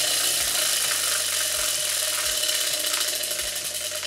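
Tabletop prize wheel spinning, its pegs clicking rapidly against the pointer flap; the clicks run together at first and spread out near the end as the wheel slows down.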